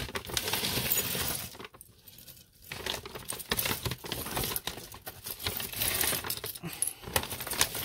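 A heap of costume jewelry (metal chains, pendants and beads) clinking and rattling as a hand rummages through it, with a short lull about two seconds in.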